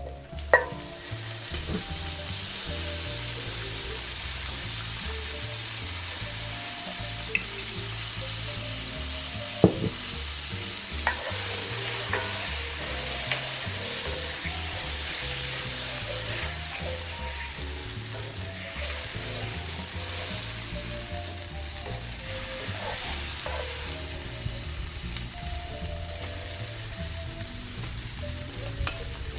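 Seasoned shrimp frying in butter and olive oil in a pan: a steady sizzle, with a few sharp knocks as a utensil hits the pan.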